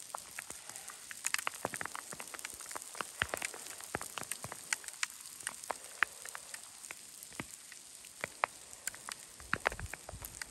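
Hail falling and striking close by: a dense, irregular patter of sharp clicks over a steady hiss.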